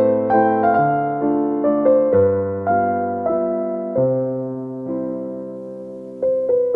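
Background music: a gentle solo piano melody over sustained bass notes, dying away in a long held chord before a new phrase begins near the end.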